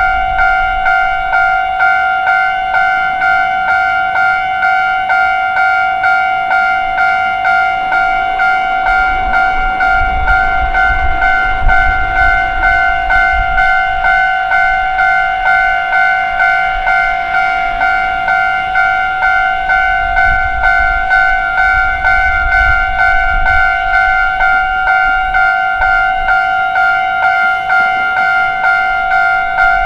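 Japanese railroad crossing warning bell ringing in a steady, rapid, even repeat. A low rumble swells beneath it twice.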